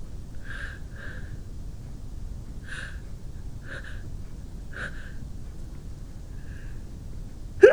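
A woman taking a string of short, sharp breaths, about seven soft puffs a second or so apart, as a sneeze builds. A loud sneeze bursts out at the very end.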